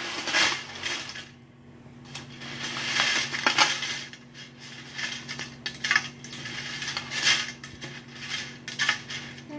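Dry spaghetti noodles rattling and clattering as they are dropped from the box into an empty black enamelware stockpot, in a string of irregular clatters.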